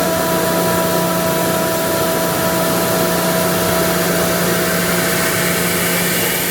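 Ingersoll Rand SSR-EP60 60 hp air-cooled rotary screw air compressor running with a steady hum and whine. Near the end its tone changes and a faint high whistle rises as it goes to unload.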